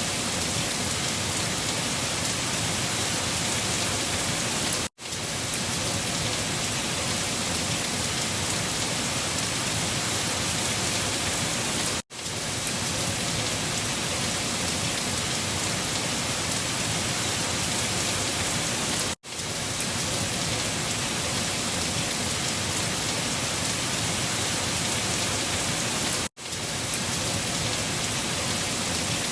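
Steady rain falling, an even hiss without distinct drops or thunder, cutting out for an instant four times, about every seven seconds.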